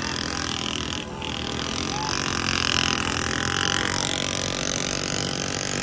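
Several small commuter motorcycles riding together, their engines running steadily.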